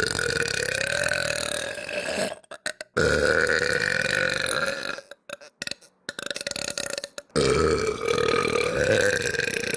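A girl's long, drawn-out burps, three in a row, each lasting about two seconds, with short breaks between them; the third starts about seven seconds in.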